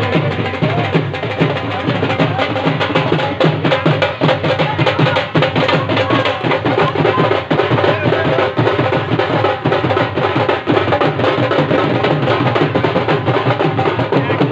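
Loud festival music driven by fast, steady drumming, the drum strokes packed close together over a strong low beat.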